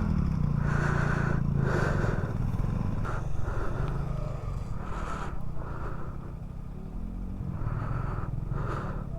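Motorcycle engine pulling up a steep off-road climb, its revs rising and falling a few times.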